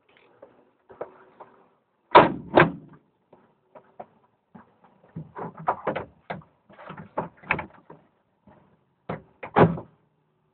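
A series of irregular knocks and clunks with no engine running: two loud ones about two seconds in, a busy run of smaller ones in the middle, and two more loud ones near the end.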